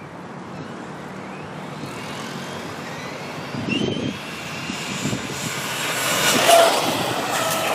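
Electric E-Revo RC monster truck on HPI Phaltline tyres driving on asphalt: motor and gear whine rising in pitch as it speeds up, over tyre noise. It grows louder as the truck comes close and is loudest about six and a half seconds in.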